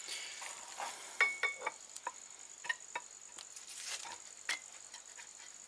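Light metallic clicks and clinks as a new exhaust VVT cam phaser is handled and fitted onto the end of a bare camshaft, metal on metal. Two short ringing pings come about a second in, then scattered single clicks.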